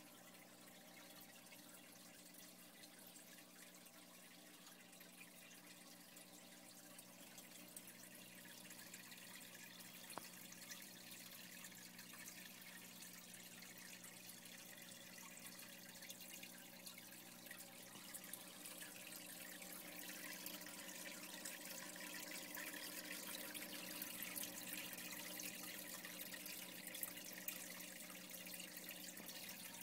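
Faint trickling, splashing water of a reef aquarium's circulation, over a low steady pump hum. The water sound grows louder in the second half.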